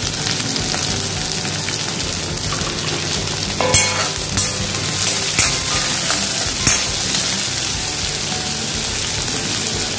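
Sliced shallots sizzling in hot oil in an iron kadai, just added to the pan. A steel ladle stirs them, scraping against the pan a few times in the middle.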